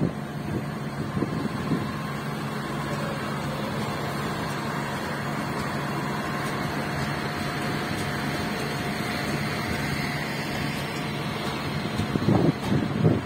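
Diesel railcar engine running steadily at the station, a constant low drone with a faint steady whine above it. A few louder low rumbles come near the end.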